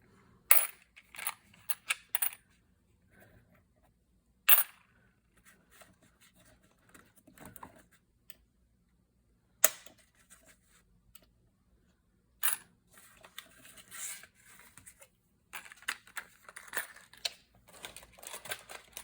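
Sharp taps and clicks of small craft items being picked up and set down on a work table, spaced a few seconds apart, then busier rustling of paper handling over the last few seconds.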